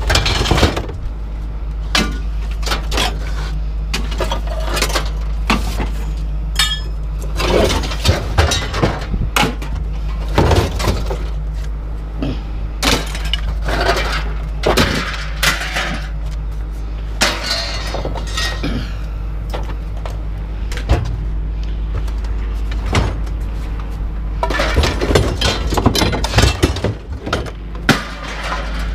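Scrap being handled and broken apart by hand: a string of sharp clinks, knocks and clatters, some with a glassy, breaking sound, over a steady low hum. The knocks are busiest near the start and again near the end.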